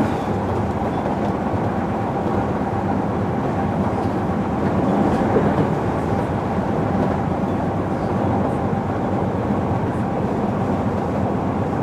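Onboard running noise of a JR Kyushu 305 series electric train, recorded in motor car MoHa 305-101, whose traction drive is a VVVF inverter with permanent-magnet synchronous motors. The train rolls along at a steady pace with a few steady tones over the rumble, swelling slightly about five seconds in.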